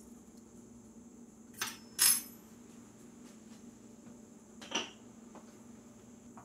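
Metal measuring spoon clinking against a stainless steel mixing bowl: two sharp clinks about half a second apart, the second the louder, then a softer clink about three seconds later.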